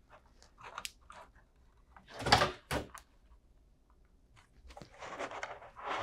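Hands handling a plastic alarm panel and its wall plate while plugging the backup battery connector into the panel. There are small clicks, two louder plastic knocks a little past two seconds in, and rustling near the end.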